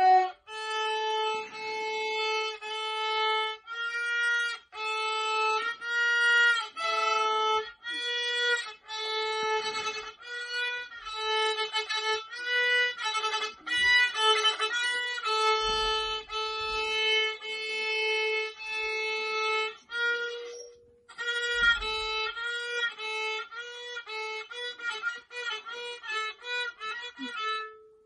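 Solo violin played by a beginner student, bowing a simple tune note by note that keeps coming back to one note, with a short break about three-quarters of the way through.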